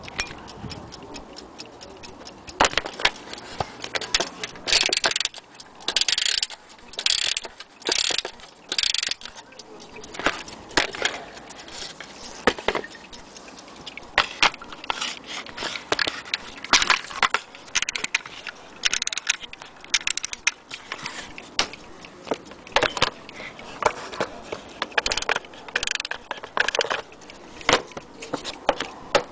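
Vintage 1960s Metamec wind-up mantel clock clicking and ticking as it is handled and turned over. About five seconds in comes a run of five short rasping bursts about a second apart, with more scattered clatter later.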